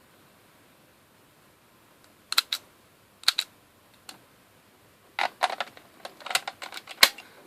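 Sharp plastic clicks and clacks from a Zyudenchi toy battery being handled and fitted into the Gabutyra de Carnival toy. A pair of clicks comes about two seconds in and another pair a second later, then a single click, then a quicker run of clicks over the last two seconds.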